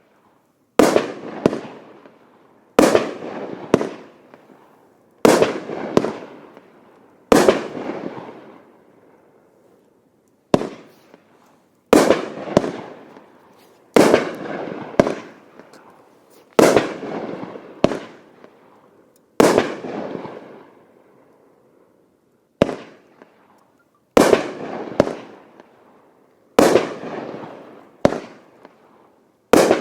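Bad Donkey CSH-2024B 'Mardi Gras' consumer firework going off: a string of loud bangs roughly every two seconds, each trailing off over about a second.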